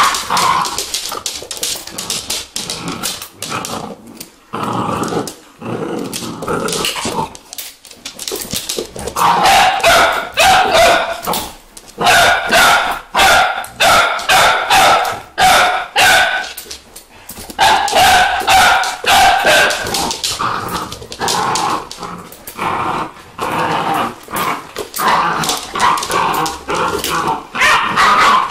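Vizsla puppies and an adult Vizsla at rough play, barking and giving high-pitched yelps, in runs of a second or two with short sharp barks between.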